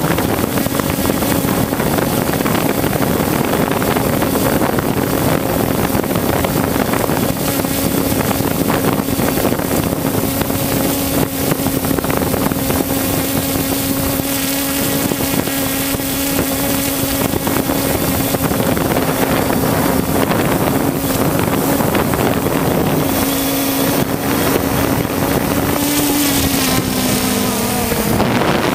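3DR Solo quadcopter's motors and propellers humming steadily in a hover, heard from the drone itself, with the hiss of prop wash and wind on the microphone. Near the end the pitch rises briefly, then drops and splits as the drone turns and flies off.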